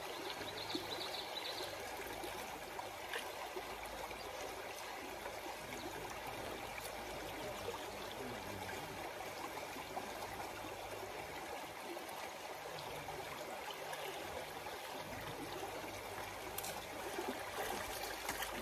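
Stream water running steadily, an even rushing sound.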